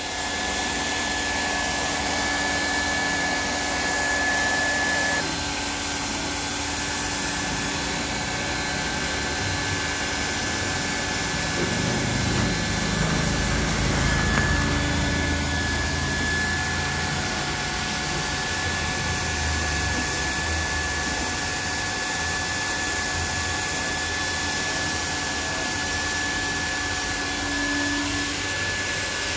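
Hot-air plastic welding gun running steadily with a constant whine, its hot air melting polypropylene welding rod into a tank seam. Some low rumbling around the middle.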